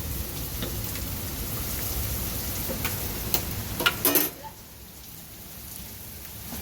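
Heavy rain falling steadily, with scattered drop taps. A few sharp clicks come between three and four seconds in, after which the rain sounds quieter.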